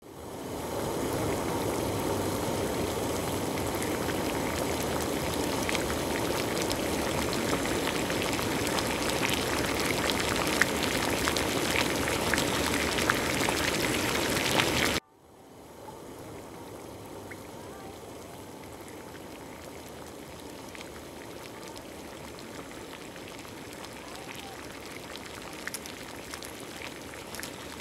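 Water boiling hard in a pan of sliced carrots: a steady bubbling hiss with small pops. About halfway through it cuts off suddenly, and a much quieter steady hiss follows.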